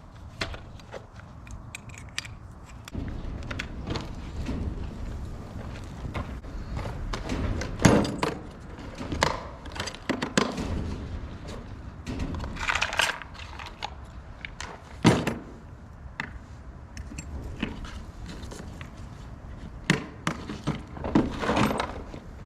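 Irregular knocks, clanks and rattles of metal tools and gear being handled and set down, with a few sharper bangs among them.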